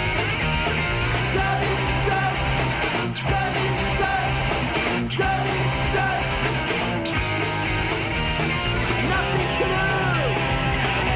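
Punk rock song playing, with shouted vocals over loud distorted guitars, bass and drums.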